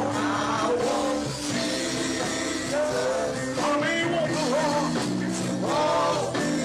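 Live gospel music: held chords underneath, with a gliding sung melody line over them.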